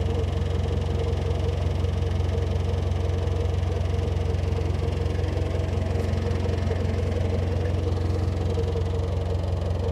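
Narrowboat's diesel engine running steadily at low revs as the boat cruises slowly: a deep, even hum with a steady higher tone above it.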